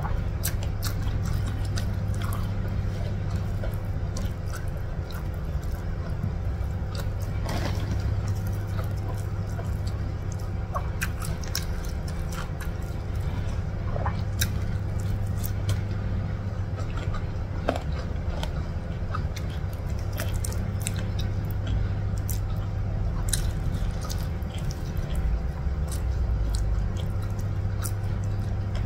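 Close-up eating sounds: fingers mixing rice with rendang and urap on a plate, and moist chewing, heard as many small clicks and smacks. Under them runs a steady low hum that does not change.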